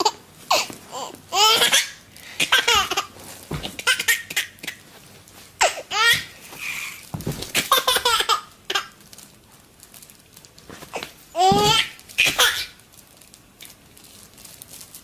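A baby laughing hard in a string of separate bursts of laughter, with short quieter gaps between them.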